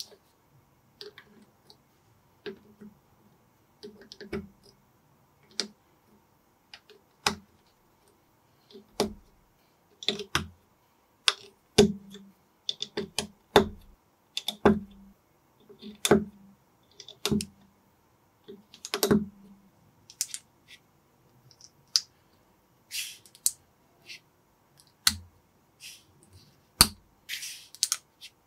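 Small plastic building bricks being pressed and snapped together by hand, giving sharp clicks at irregular intervals. A couple of longer scraping sounds come in the second half.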